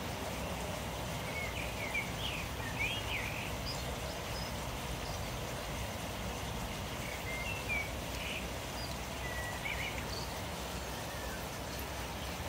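Steady rush of water from a garden pond's waterfall pouring into the pond, with small birds chirping briefly a few times.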